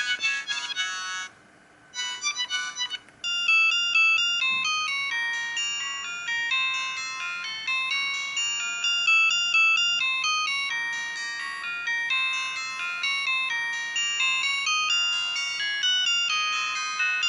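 Siemens CL50 mobile phone ringtones: one electronic melody ends about a second in, a few short notes follow after a brief pause, and a new quick tune of short stepped high notes starts about three seconds in and runs on.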